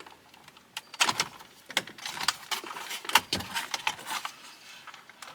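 Wiring connectors being unplugged from the back of a pickup's factory radio head unit: a run of sharp clicks and rattles.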